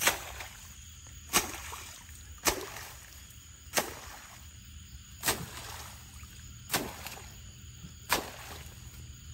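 Regular splashes in water, one about every second and a half, with a steady high insect chirping behind them.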